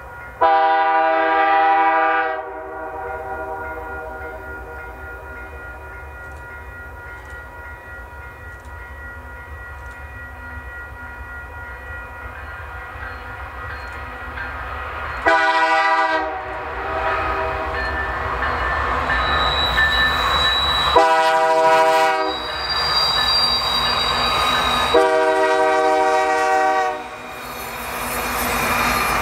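Canadian Pacific locomotive's multi-chime air horn sounding four blasts: a long one near the start, then after a long pause a short one, a slightly longer one and a long one. The rumble of the passing train grows steadily louder underneath, with high wheel squeal in the second half.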